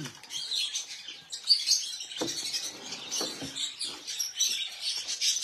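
Caged birds chirping and twittering continuously, many high chirps overlapping, with a couple of short knocks about two and three seconds in.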